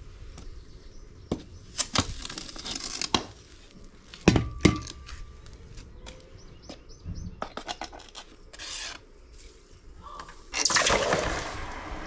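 Steel tongs clanking and scraping inside a metal stockpot while a hot aluminum bronze casting in its plaster mold is fished out, with a few sharp metallic knocks, one of which rings briefly. Near the end the hot casting is plunged into a bucket of water and quenches with a loud hissing, bubbling rush.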